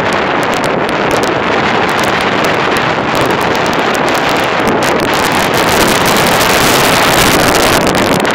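Strong wind buffeting the microphone over the rush of heavy seas breaking along an oil tanker's hull. It grows a little louder about two-thirds of the way through as a larger wave surges along the side.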